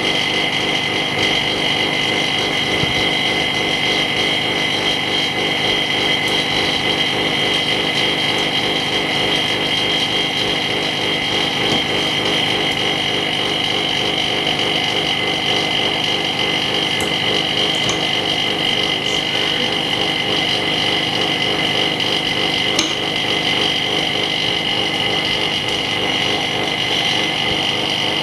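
Steady machine hum with a constant high whine from an LCD repair separator machine running, with a few faint clicks from hand tools near the end.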